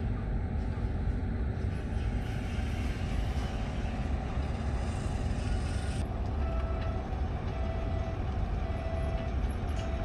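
Heavy diesel earthmoving machinery, a Shantui bulldozer and dump trucks, running with a steady low rumble. About two-thirds of the way in, a short beep starts repeating about once a second.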